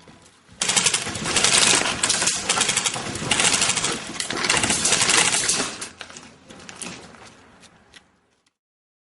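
Airsoft guns firing rapid full-auto bursts, a dense mechanical rattle that starts abruptly under a second in and fades out after about six seconds.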